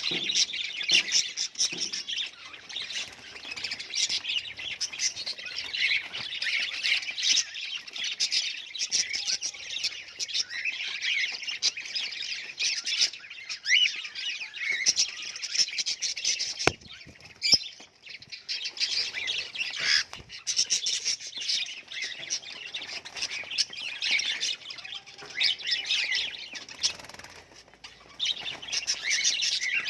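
Budgerigars chattering and chirping without a break, a dense run of quick warbling and squawking calls, with a single sharp click about seventeen seconds in.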